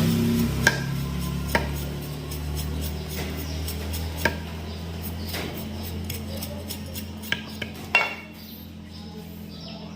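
About six sharp metallic clicks and clinks, spread out and with the strongest near the end, over a steady low hum.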